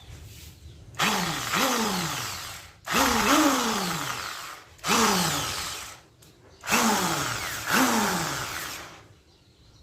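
Electric impact drill run with no load in four short squeezes of the trigger. Each time the motor starts sharply, sometimes revs up again, then winds down with a falling whine once the trigger is released.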